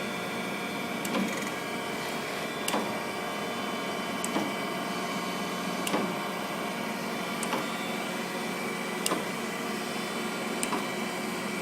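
Kent KGS-63AHD hydraulic surface grinder running steadily, its spindle motor and hydraulic pump giving a constant hum, with a short sharp click about every second and a half as the hydraulic table reverses and the auto down feed indexes.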